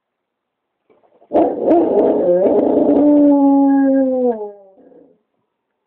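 Labrador dog howling, set off by a fire truck's siren: one long howl starting about a second and a half in, held for about three seconds, then falling in pitch and trailing off.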